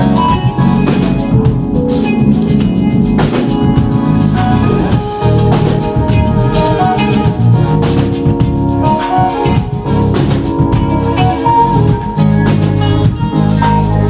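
Live funk band playing: keyboards held in sustained chords and melody lines over a drum kit and electric guitar.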